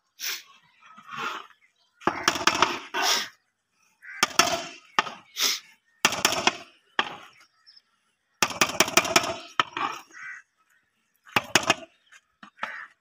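A long-handled metal spatula scrapes and clanks against a large aluminium cooking pot as a pot of cooked pulao rice is turned over. The sound comes in about seven separate scraping strokes with short pauses between them.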